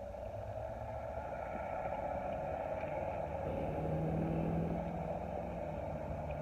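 Steady low rumble of a car idling, heard from inside the cabin. A steady hum joins about halfway through.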